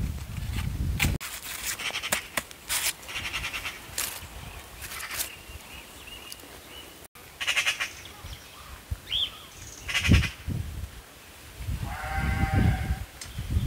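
Scattered sharp snips and rustling of hand shears cutting dry sunflower stalks, then a single wavering bleat from a farm animal near the end. A short bird chirp comes a few seconds before the bleat.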